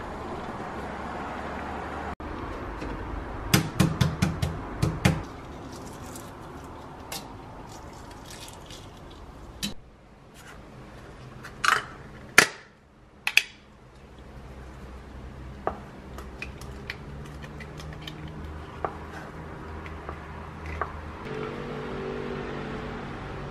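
Breakfast prep on a kitchen counter: a quick run of knocks and clinks of dishes and utensils about three seconds in, then a few sharp clicks around the middle as a plastic tub's lid is pried off. Soft cheese is spread on bread with light scraping near the end.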